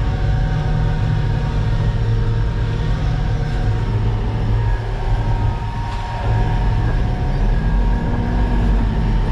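Concrete mixer truck's engine running steadily as the truck pulls away and drives off, a low, even drone.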